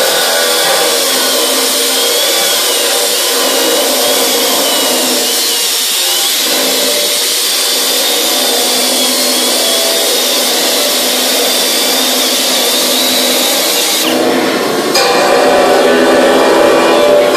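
Dynabrade 52211 air-powered offset die grinder spinning a Weiler stainless steel crimped wire end brush against a weld, a steady high whine over the hiss of wire scrubbing metal, the pitch wavering slightly as pressure varies. About fourteen seconds in the sound changes and grows heavier and lower.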